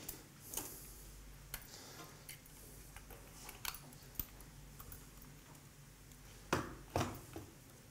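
Metal surgical instruments clinking and clicking as they are handled, scattered light clicks with two louder knocks a little before the end.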